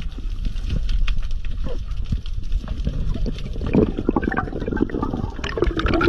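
Underwater sound: a low water rumble on the microphone with scattered clicks. About two-thirds of the way in it turns into a busier stretch of bubbling.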